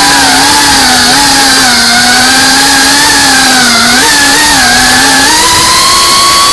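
FPV quadcopter's motors and propellers whining loudly, heard from its onboard camera. The pitch wavers with the throttle as it weaves between trees, then rises about five seconds in and holds higher as the drone climbs.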